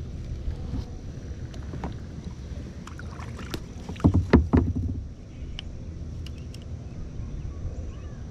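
Steady low wind rumble on the microphone, with scattered small clicks and knocks of spinning tackle being handled in a plastic kayak, and a short cluster of louder knocks and thumps about four seconds in.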